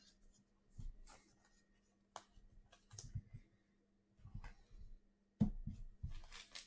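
Faint clicks and soft rustles of trading cards being handled, with louder rustling starting near the end.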